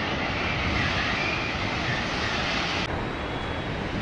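Steady roar of a large fire at a burning train wreck, with a faint wavering high tone over it; the sound turns suddenly duller about three seconds in.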